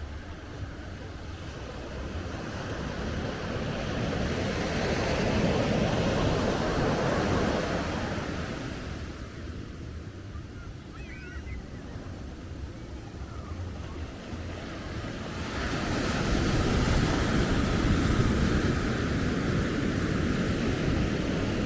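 Sea surf on a beach: the wash of the waves swells over a few seconds, eases into a lull, then swells again from about sixteen seconds in. A faint short high chirp sounds about eleven seconds in.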